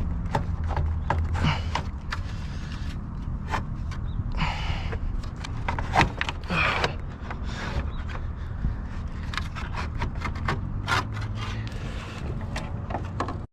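Irregular knocks, clicks and scraping as the electric cooling fan assembly is worked loose and pulled out of a 2004 Mercedes S55 AMG's engine bay, over a steady low hum.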